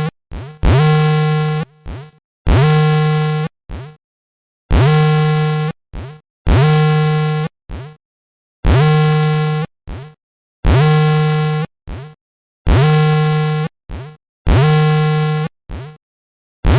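Earthquake-warning alarm from monitoring software: a harsh buzzing tone about a second long, each starting with a quick downward sweep, repeating about every two seconds with a short blip or two between.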